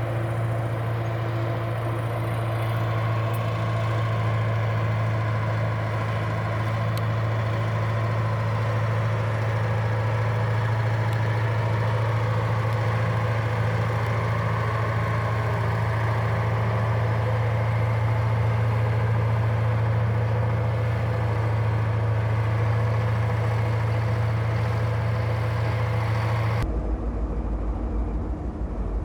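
An engine running steadily at a constant speed, with a strong low hum. Near the end the sound changes abruptly to a deeper, rougher engine rumble.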